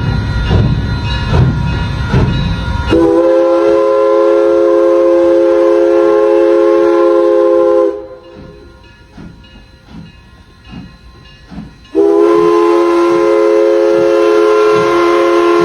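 Steam locomotive working, its exhaust beating about twice a second. Its chime whistle sounds a long steady chord of several notes from about three seconds in, stops for about four seconds while faint chuffs go on, then sounds again near the end.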